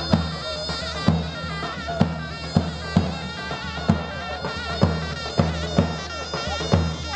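Davul-zurna folk dance music: a shrill zurna plays a wavering, trilling melody over a low drone while a davul bass drum beats a loud, uneven dance rhythm about once or twice a second.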